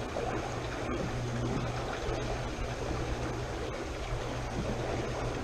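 Steady rush of flowing water with a constant low rumble underneath.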